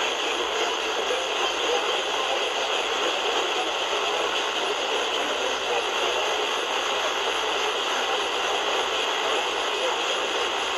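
Small Sony pocket radio's speaker giving steady static hiss from weak, distant AM reception, with a faint voice from the station under the noise.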